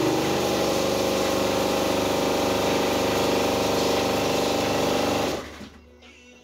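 A nozzle spraying inside an enclosed parts-cleaning cabinet: a steady hiss over an even machine hum, cutting off about five seconds in.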